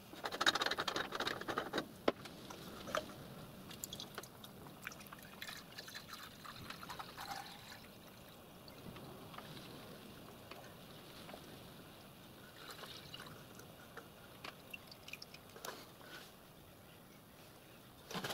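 Water being poured through a plastic funnel into the side water tank of a 7¼-inch gauge miniature live steam locomotive, filling it to test for leaks. The pour is loudest for the first two seconds or so, then goes on as a quieter, uneven trickle with a few light clicks.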